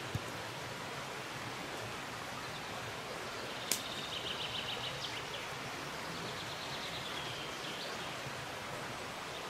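Steady outdoor background hiss, with a small bird singing a high, rapid trill twice near the middle, the first one starting with a sharp click.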